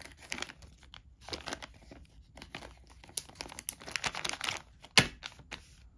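Bag of game pieces crinkling and rustling as it is handled, with scattered small clicks and one sharp click about five seconds in.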